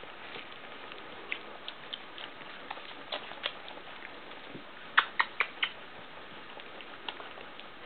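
Puppies nursing and mouthing at their mother, making scattered small clicks and taps over a steady hiss, with four sharper clicks in quick succession about five seconds in.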